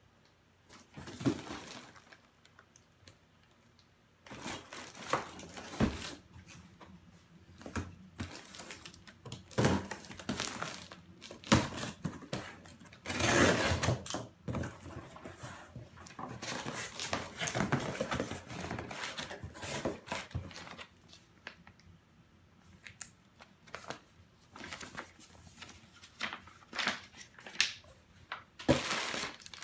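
A cardboard shipping box being opened by hand: packing tape slit with a box cutter and torn off, flaps folded open, and a paper manual and bubble-wrap packing handled. Bouts of rustling, crinkling and tearing with short pauses between.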